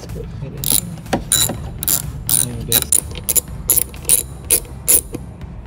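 Hand socket ratchet clicking in quick back-and-forth strokes, about two or three bursts a second, as it turns out a fender bolt. The clicking starts just under a second in and stops about five seconds in.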